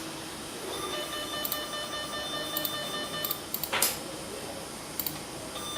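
Tone from a cable tracer's amplifier probe, a steady pitched tone that starts about a second in and cuts off a little after three seconds, then comes back near the end. The tone sounds when the probe tip is against the cable carrying the tester's trace signal. A few brief clicks come from the probe touching the cables.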